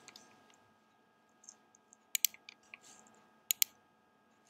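Computer mouse clicking: two quick pairs of sharp clicks, one about two seconds in and another about a second and a half later, with a few fainter ticks around them.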